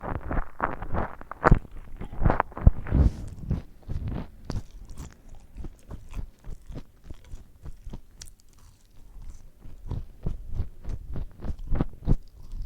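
A person biting and chewing chicken nuggets and fries, a quick run of crunchy chewing strokes that eases off in the middle and picks up again near the end.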